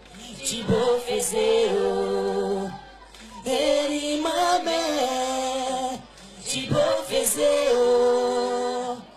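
Voices singing a song together in harmony without instruments, in phrases of about three seconds with short breaks between.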